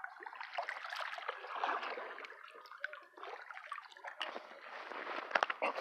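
Soft water trickling and gurgling at the lake's edge, with faint scattered clicks.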